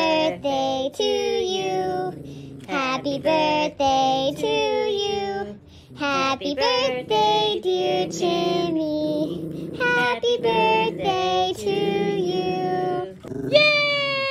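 A high, child-like voice singing a tune in four phrases, as at a birthday. Near the end a single long cry falls slowly in pitch.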